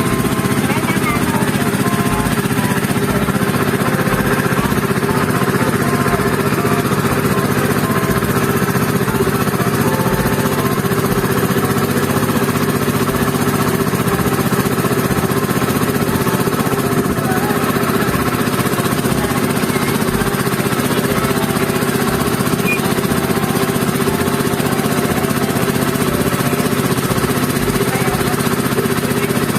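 Motorboat engine running steadily under way, an even, unbroken drone.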